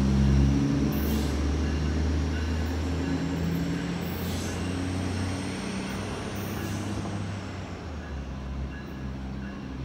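A diesel train running past and moving away, its low engine drone fading steadily, with a few faint clicks over it.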